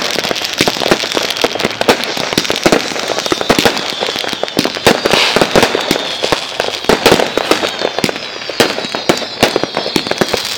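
Fireworks going off in a dense, rapid string of sharp pops and bangs, joined in the second half by thin, high, slightly falling whistles.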